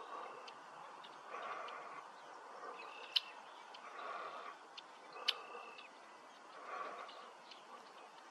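Faint outdoor animal calls: a soft call repeating about every second and a half, and a few sharp, high bird chips, two of them louder, about three and five seconds in.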